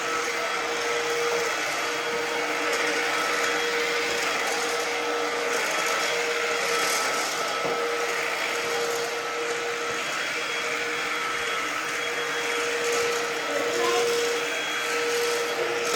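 Ozito PXC 18V cordless stick vacuum running steadily, its motor giving a constant whine over the rush of suction.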